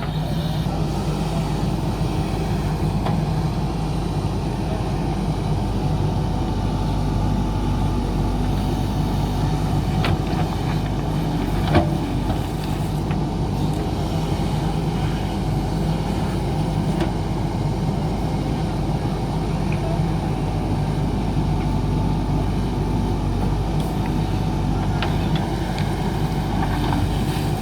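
JCB backhoe loader's diesel engine running steadily under work, with one sharp knock about twelve seconds in.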